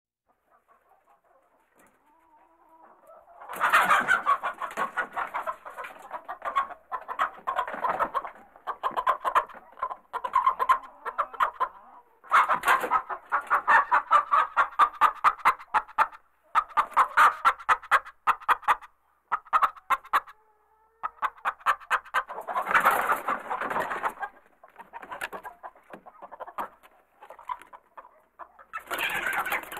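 Chickens in a coop clucking and squawking in agitated bouts of rapid clucking. The calls are faint at first, turn loud about four seconds in, and come in waves with short lulls between.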